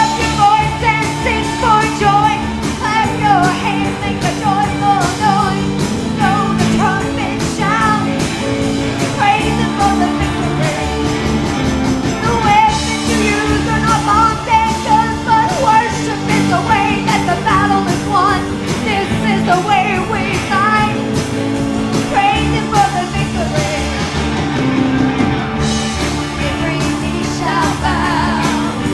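Upbeat gospel song with singing over a band, with a steady drum beat and held chords.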